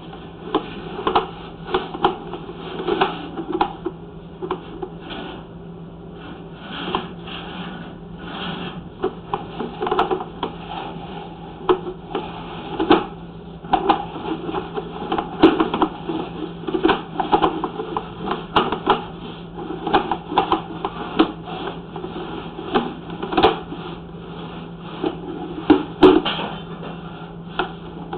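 Drain inspection camera head and push cable knocking and scraping their way through a drain pipe: an irregular clatter of knocks and clicks over a steady electrical hum.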